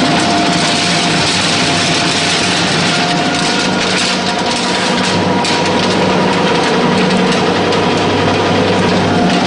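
8 mm horizontal pellet mill running under load, pressing animal-feed mash into pellets: a loud, steady machine hum with an even, dense rushing noise over it.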